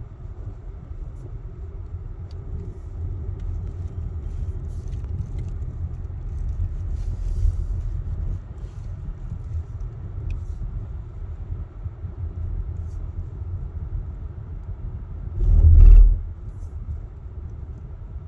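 Steady, uneven low rumble that swells and fades, with one louder low thump lasting about half a second near the end.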